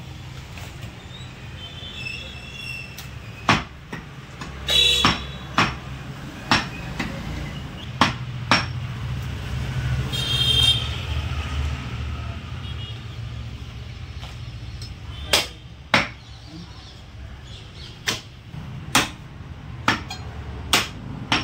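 Heavy butcher's cleaver chopping goat meat on a wooden log chopping block: sharp single chops at irregular intervals, a cluster in the first half and another run near the end, over a steady low hum.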